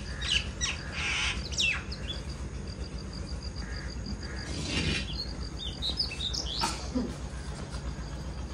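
Birds chirping and calling, with several sharp downward-sweeping chirps and a quick, even run of high peeps. A steady low hum runs underneath.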